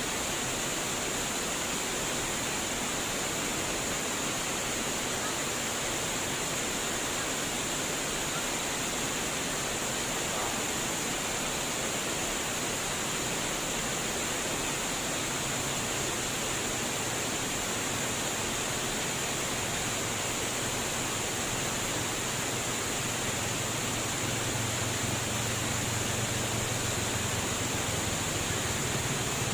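Flowing water rushing steadily, an even hiss with no breaks. From about halfway through, a low hum rises underneath and grows louder toward the end.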